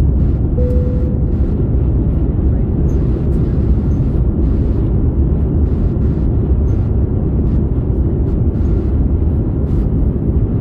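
Airliner's jet engines at climb thrust heard inside the cabin: a loud, steady low rumble. A short steady tone sounds briefly about a second in.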